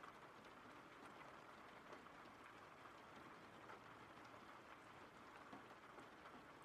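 Faint, steady rain ambience with scattered drop ticks.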